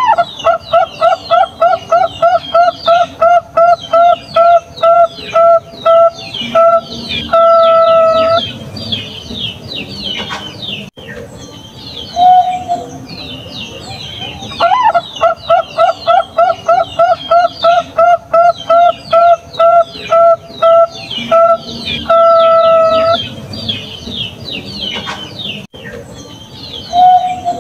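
Zebra dove (Bangkok-bred perkutut) singing its cooing song twice. Each bout is a fast run of short coos, about three a second, spacing out and ending in one long drawn-out coo. A single short coo falls between the bouts and another near the end. This is a champion's song used as a lure to set other perkutut singing. Small birds chirp high and fast throughout.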